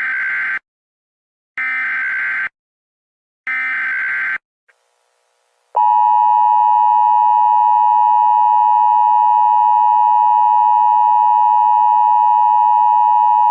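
Emergency Alert System broadcast opening: three one-second bursts of warbling digital SAME header data about two seconds apart, then, about six seconds in, the loud, steady two-tone EAS attention signal (853 and 960 Hz) that announces an Amber Alert message.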